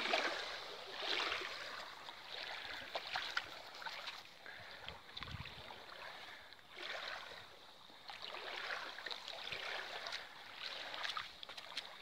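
Small river waves lapping onto a pebbly shore, a rushing wash that swells and fades every second or two, with faint clicks of water on pebbles.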